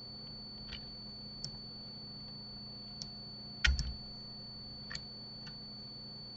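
Scattered clicks of a computer mouse and keyboard, about half a dozen, with one louder double click and a low thump a little past halfway. A steady low hum and a faint high whine run underneath.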